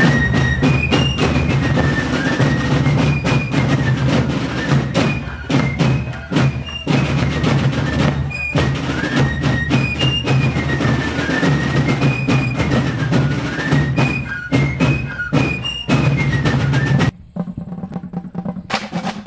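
Fife and drum corps playing a march: snare and bass drums beating steadily under a high, shrill fife melody. The music stops abruptly about 17 seconds in, leaving a quieter outdoor background.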